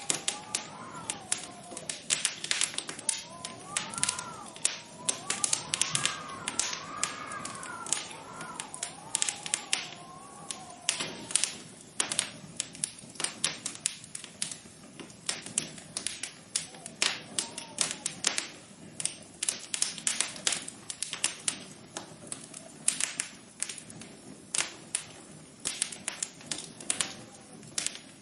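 Rapid, irregular tapping clicks, some louder than others. A soft tone glides up and down beneath them for roughly the first ten seconds.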